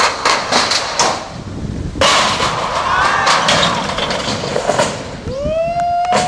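A skateboard rolls on a big vert ramp with clacks and knocks of the board. The rolling noise swells suddenly about two seconds in. Near the end there is a long rising shout from the onlookers.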